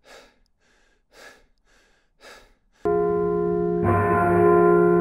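A man breathing hard, out of breath from running up a long flight of steps: three short breaths about a second apart. About three seconds in, a loud sustained chord of music sets in, with more notes joining a second later.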